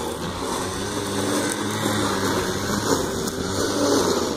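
Petrol string trimmer engine running steadily, swelling slightly at times as it cuts grass.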